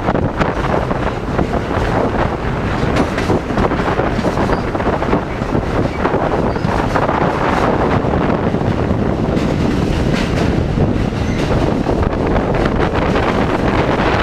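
New York City subway train running through a tunnel, heard from a camera mounted outside the car: a loud, steady rushing noise of the train with wind buffeting the microphone.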